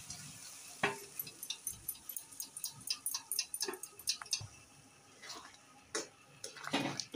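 Metal spatula clicking and scraping against a metal pressure cooker pot as cooked chana dal is scooped out into a kadai: a quick run of light ticks, then a few louder knocks as the dal is stirred into the masala.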